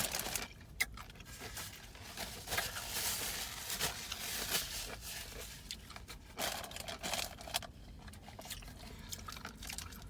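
A person chewing food close to the microphone, with irregular wet crunching and smacking.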